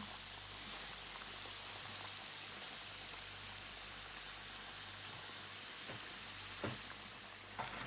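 Potato samosas deep-frying in oil over lower-than-medium heat: a steady fine crackle and fizz of bubbling oil. A couple of faint knocks come near the end.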